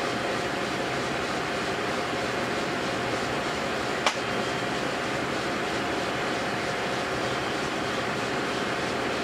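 South Bend 10L metal lathe running steadily, its chuck spinning while a tool bit faces off the end of a steel shaft. A single sharp click about four seconds in.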